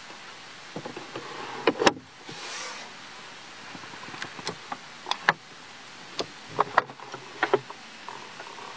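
Car interior trim being handled: a string of sharp clicks and knocks from the glove box, a round chrome air vent's adjuster tab and the centre-console armrest lid. There is a short rushing sound about two seconds in.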